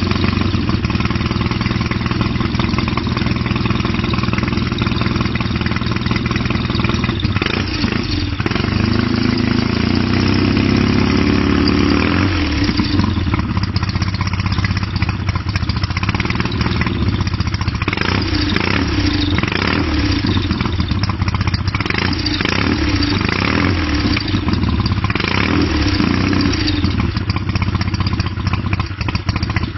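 Custom chopper motorcycle engine running at idle. In the second half the revs rise and fall unevenly, as if the throttle is being blipped.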